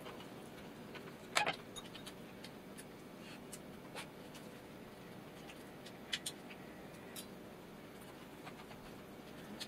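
Metal chopsticks clinking against a stainless steel bowl as food is picked up: a few scattered sharp clicks, the loudest a quick double clink about a second and a half in.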